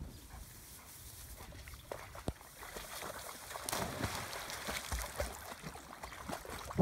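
Labrador retrievers jumping into a shallow stream and splashing through the water, from about two and a half seconds in.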